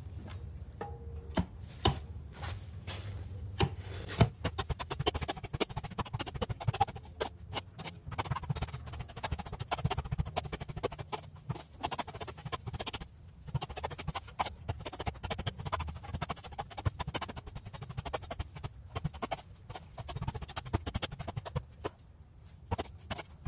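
Manual clamshell post-hole digger driven again and again into a dirt floor: repeated thuds and scrapes of its steel blades biting and lifting soil as a post hole is dug by hand.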